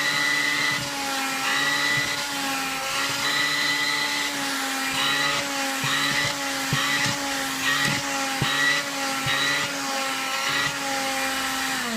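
AEG Rapido cordless handheld vacuum cleaner running, its motor whine steady with slight wavers in pitch as the nozzle is worked over fabric sofa cushions picking up dog hair. A few brief knocks come in the middle. At the very end it is switched off and the whine falls away as the motor winds down.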